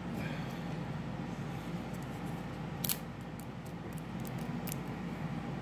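Hands picking through wet oyster flesh for pearls in a ceramic bowl: faint squishy handling with a few small clicks, the sharpest about three seconds in, over a steady low hum.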